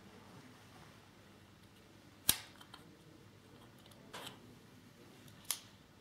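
Small hard plastic parts clicking and knocking as an O-ring is worked onto a plastic receptacle with an assembling aid: a sharp click about two seconds in, a softer knock past four seconds and another sharp click near the end, over faint handling rustle.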